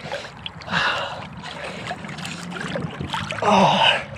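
An ice swimmer's heavy, voiced breaths in near-freezing water, two loud ones about two seconds apart. Between them, water sloshes and splashes close to the camera as he swims.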